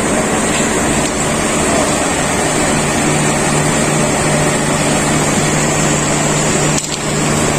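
Steady machine drone: an even rushing noise with a constant low hum, dipping briefly about seven seconds in.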